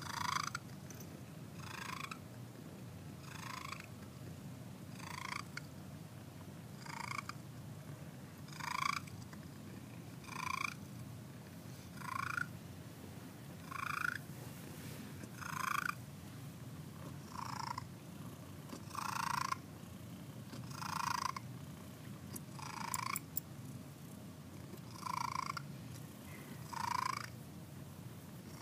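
Domestic cat purring close up: a steady low purr with a louder, breathy pulse about every two seconds.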